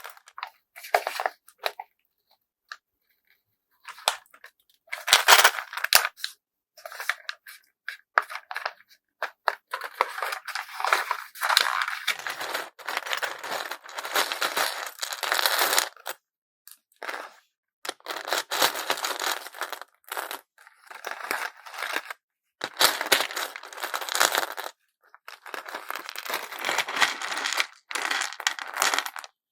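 Packaging being handled for bead packing: crinkling, rustling and tearing of wrapping material in irregular bursts, some of them several seconds long, separated by short pauses.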